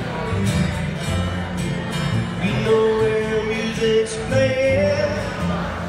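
Live acoustic duo music: an acoustic guitar strummed over a plucked upright double bass. About halfway through, a long held melody line rises over them.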